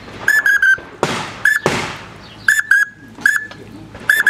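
Duck whistle call blown in short, high whistled peeps, one at a time and in quick runs of two or three, with breathy rushes of air between them, imitating a duck's whistle.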